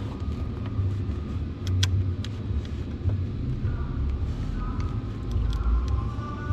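Steady low rumble, with a few sharp metallic clicks as the car battery's negative terminal clamp is handled.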